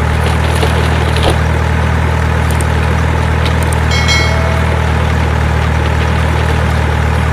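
Truck engine sound effect running steadily as a loud, even low drone. About four seconds in there is a short bright chime.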